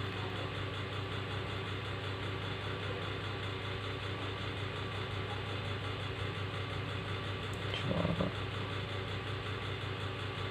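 Steady low hum, even and unchanging, like a small motor or fan running.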